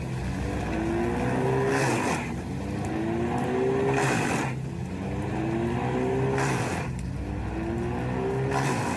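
Large wood chipper running under load. Its engine pitch climbs back up over and over, broken by a loud burst of chipping noise about every two and a half seconds as material is pulled through the cutter.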